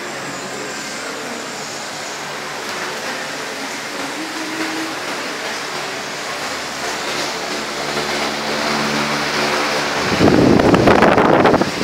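Steady whirring of electric pedestal fans, slowly getting louder. About ten seconds in, a loud rush of air buffets the microphone for nearly two seconds.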